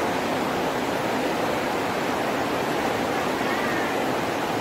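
A steady, even rushing noise that does not change or break.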